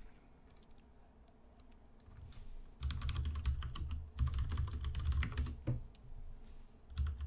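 Typing on a computer keyboard: quiet at first, then quick runs of key presses starting about three seconds in as a command is entered.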